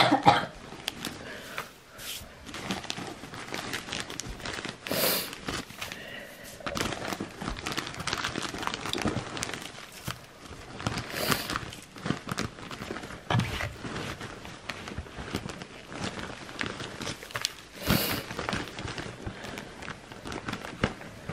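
Wood-shaving bedding being spread and pressed by hand in a plastic cage tray: a continuous, irregular dry rustling and crunching of the shavings, with a few louder sweeps.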